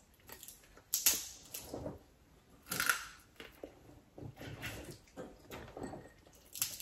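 Close-up eating sounds of steamed blue crab being picked apart by hand: sharp cracks and clicks of shell, the two loudest about one and three seconds in, with wet chewing and smacking between.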